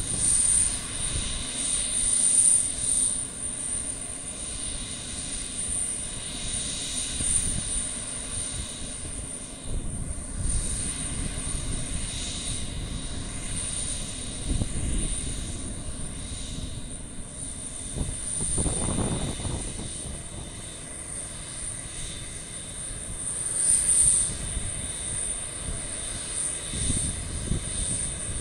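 Twin turbofan jet engines of an Embraer KC-390 military transport running, a steady jet noise that swells and eases in loudness.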